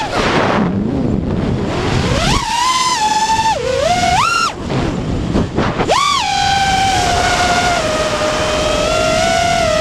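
Whine of an FPV quadcopter's four T-Motor F60 Pro II 2700KV brushless motors and props, rising and falling in pitch with the throttle. Near the start the whine drops away under rushing air as the throttle is cut in a flip. About two and a half seconds in the motors spool back up, swing sharply in pitch, then settle into a steady cruising whine.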